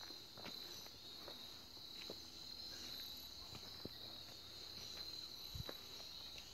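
A steady, high-pitched insect chorus in woodland, with faint scattered footsteps on a forest trail.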